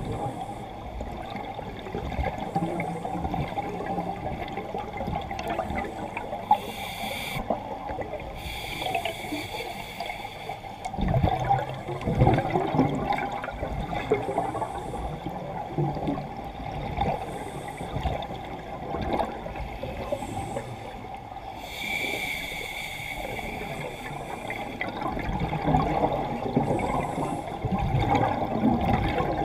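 A scuba diver's breathing heard underwater: steady muffled water noise, with hissing bursts of regulator breaths and exhaled bubbles every few seconds. Two longer bursts stand out, one about a quarter of the way in and one about three quarters through.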